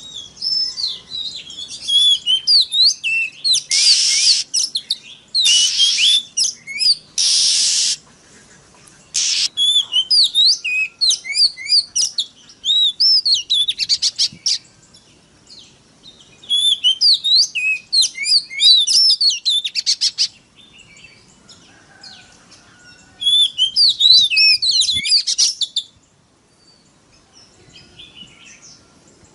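Oriental magpie-robin (kacer) singing in bursts of rapid, varied whistled phrases separated by short pauses, with several short harsh rasping notes mixed into the first phrases.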